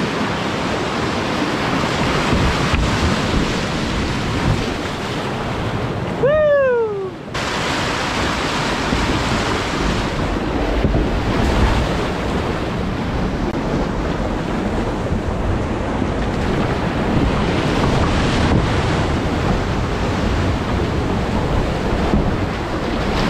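Whitewater rapids rushing and splashing loudly and steadily around a kayak running them. About six seconds in the sound goes dull for about a second, with a short tone falling in pitch.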